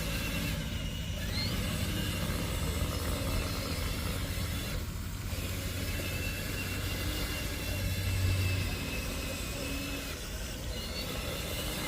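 A vehicle engine running steadily with a low rumble, swelling briefly about eight seconds in.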